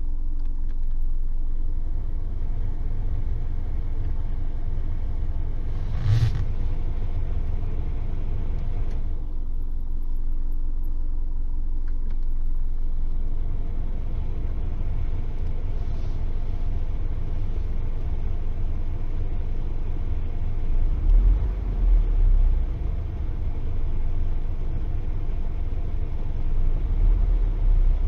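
A heating stove's steady low rumble, with faint high-pitched chirping like crickets, which may be the stove whistling. There is a brief louder burst about six seconds in, and a few low thumps in the second half.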